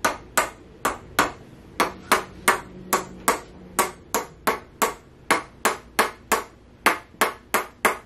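Chiropractor's red mallet tapping a joint in the lower back in a steady run of light, sharp taps, about two or three a second.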